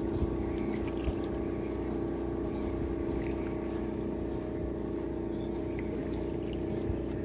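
A boat engine running steadily, a low even drone that does not change, with a few faint drips and small clicks from a wet gill net being hauled into a wooden canoe.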